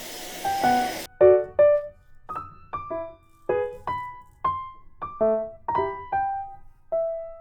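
Background music: a light melody of separate keyboard notes with a piano-like sound. A steady hiss under it cuts off suddenly about a second in.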